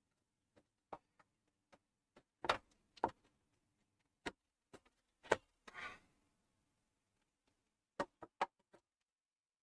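Scattered sharp clicks and knocks from handling the open desktop PC tower and its parts, with a short rustle about six seconds in. A faint low hum sits under the first six seconds or so and then stops.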